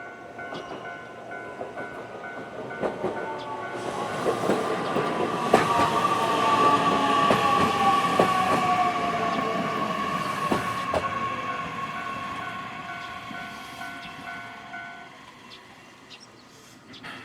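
Japanese level-crossing warning bell ringing in rapid, evenly repeated dings while a train passes over the crossing. The train's running noise swells to a peak partway through and fades, with wheel clicks over the rail joints and a falling whine. The bell stops about two seconds before the end.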